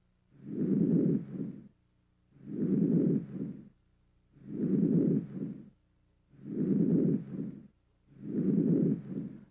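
Normal vesicular breath sounds as heard on auscultation: a soft, low-pitched breathing noise that swells and fades five times, about one breath every two seconds, with a short quiet gap between breaths.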